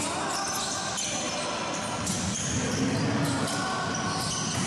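Live basketball play on a hardwood gym floor: a ball bouncing and sneakers squeaking, with short high squeals scattered throughout.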